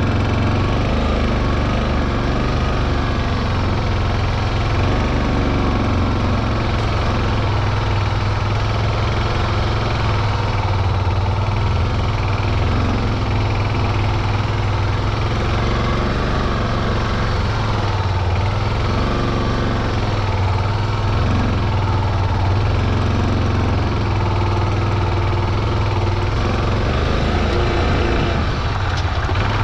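Motorcycle engine running at low, steady revs while the bike is ridden slowly over a sandy beach track.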